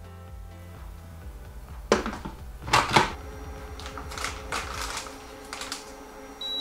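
The stainless steel lid of a Moulinex cooking food processor is set onto its metal bowl, with sharp metal clanks about two and three seconds in. A run of light clicks follows, then a short high beep near the end. Quiet background music plays underneath.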